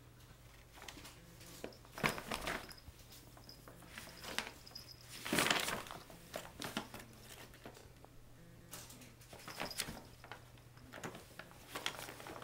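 Brown paper bag rustling and crinkling in irregular bursts as a kitten scrabbles and pounces inside it. The loudest rustle comes about five and a half seconds in.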